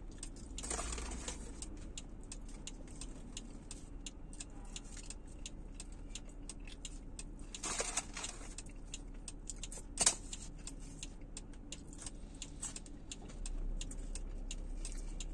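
Soft rustling of a paper takeout bag as fries are picked out and eaten, with scattered small clicks and one sharper click about ten seconds in, over a low steady hum.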